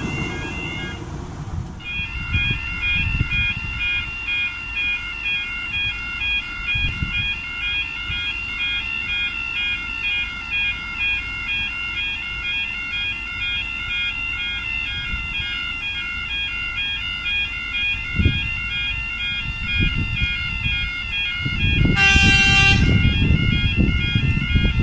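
Railway level crossing warning alarm sounding a steady two-tone warble, with a brief break a little after the start. Near the end a short, loud horn blast, followed by the low rumble of an approaching Tyne and Wear Metro train.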